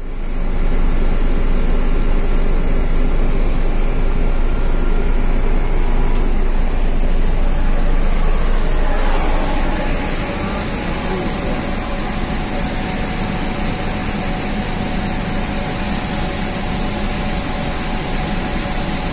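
Ship's air-conditioning refrigeration compressor and surrounding plant machinery running with a steady, loud hum and hiss, a little quieter from about halfway.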